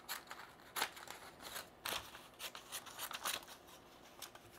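3D-printed ABS plastic scissors cutting a sheet of printer paper: a run of short, crisp snips and paper crunches, one after another.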